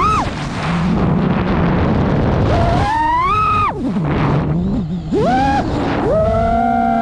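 FPV freestyle quadcopter's motors and propellers whining, the pitch sweeping up and down as the throttle is punched and cut: it drops out into a rush of wind noise early on, climbs again a little under 3 s in, falls away around 4 s, punches up briefly near 5 s, then settles into a steady hum for the last second.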